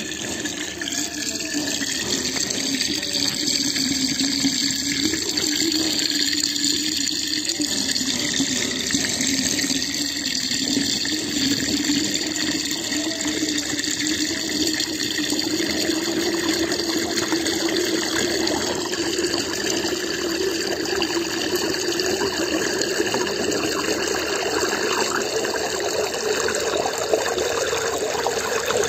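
Water swirling in a whirlpool as it drains down a hole, a steady rushing and gurgling. A low tone within the rush slowly rises in pitch over the second half.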